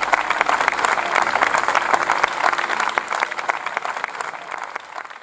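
Applause: many hands clapping together, thinning and fading out over the last second or so.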